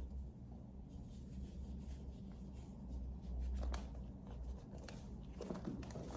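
Domestic cat purring close by, a low rumble that pauses briefly between breaths, with faint scratchy rustling on top that grows louder near the end.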